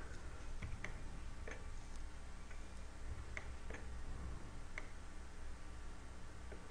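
Computer mouse buttons and keyboard keys clicking now and then: a handful of short, sharp clicks at irregular intervals over a low steady hum.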